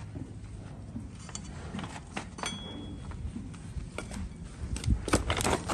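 Scattered knocks and scrapes of a long-handled hoof knife working a donkey's hoof set on a wooden block, with a quick run of sharper knocks near the end.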